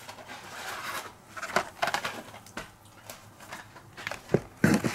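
Packaged Hot Wheels cars being handled and pulled from a cardboard case: a rustle, then several light knocks and clicks.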